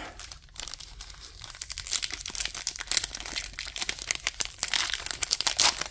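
Foil wrapper of a football trading-card pack crinkling as it is picked up and torn open by hand, an irregular run of sharp crackles growing louder near the end.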